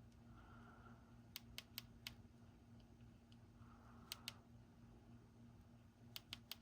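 Faint clicking of a DJI Osmo remote controller's button, pressed in three quick groups a second or two apart.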